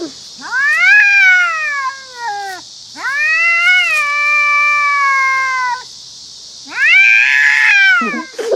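Domestic cat yowling angrily: three long, drawn-out caterwauls, each swelling up in pitch and sinking away, the last one harsher and rougher.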